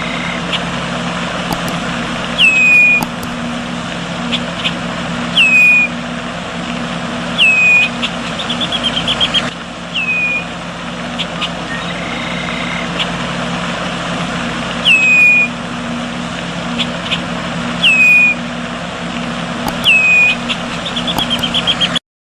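A bird repeatedly calling a short, clear whistle that slides down in pitch, about every two to three seconds, twice followed by a quick run of rapid notes. Under it runs a steady noisy background with a low hum.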